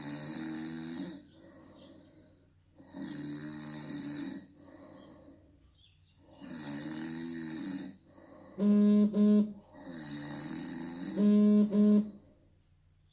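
A person snoring deliberately in a steady rhythm, a loud snoring inhalation about every three seconds with quieter breaths between. Twice in the second half a loud, steady buzzing tone sounds in two short pulses, the snoring bracelet's vibration alert going off on detecting the snoring.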